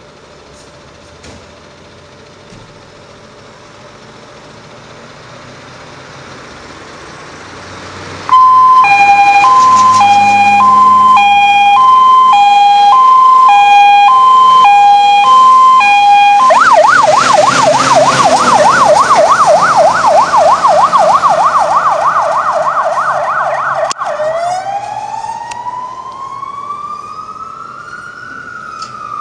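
A MAN fire engine's diesel engine rumbles, growing louder as the truck pulls out. About eight seconds in, its siren starts suddenly with a two-tone hi-lo pattern. Midway the siren switches to a fast yelp, then to a slow rising-and-falling wail that fades as the truck drives away.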